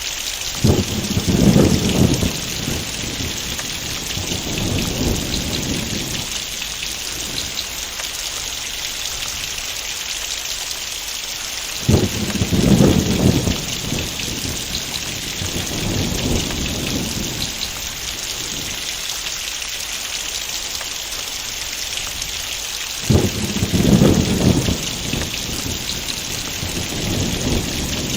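Heavy rain falling steadily, with three rolls of thunder: one near the start, one about twelve seconds in and one about twenty-three seconds in. Each begins suddenly and rumbles away over several seconds.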